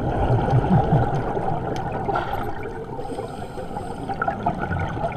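Underwater bubbling from a scuba diver's regulator exhaust as the diver breathes out, a gurgling rush with surges about half a second in and again near the end.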